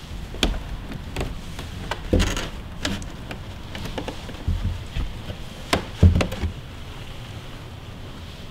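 Scattered knocks and creaks, about a dozen at uneven spacing, the loudest about six seconds in, over a low steady rumble of wind.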